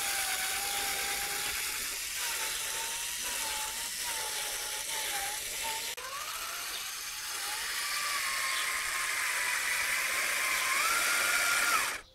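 Small RC tractor's electric drive motor and gears whining and rattling as it pulls a small plow through soil, the whine wavering up and down in pitch with the throttle. The sound cuts off suddenly near the end.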